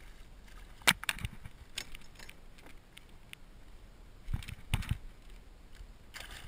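Scattered sharp clicks and dull knocks of fishing gear being handled against a plastic kayak while a hooked fish is fought at the side: the loudest is a sharp click about a second in, with a cluster of duller knocks around four and a half seconds in.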